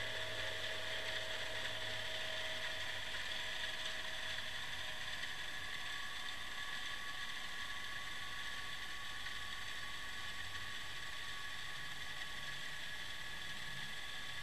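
Steady hiss with a high, even whine, picked up by a submerged underwater camera lying on the riverbed.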